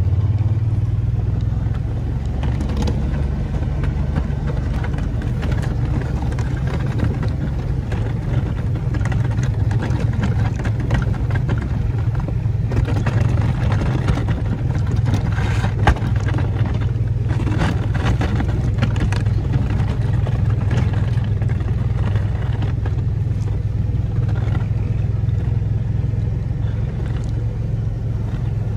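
Kawasaki Mule utility vehicle's engine running at a steady low drone as it drives with its front plow blade pushing snow, with scattered knocks and rattles and one sharp knock about sixteen seconds in.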